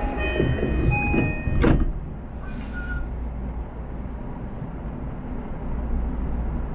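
Commuter train doors closing: electronic door-chime tones, then the doors slide shut with a sharp thump about two seconds in, followed by a short hiss of air. After that comes a steady low rumble as the electric train starts to pull out.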